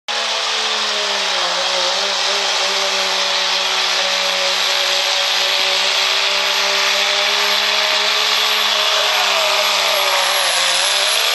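Second-generation Dodge Ram's Cummins diesel at full throttle under the load of a pulling sled, running loud and steady with a thin high whistle on top. Its pitch sags briefly once early on and again near the end as the load bears down.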